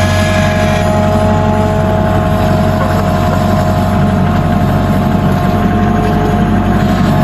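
Hudson sawmill's engine running steadily, with a constant high whine over the low engine note.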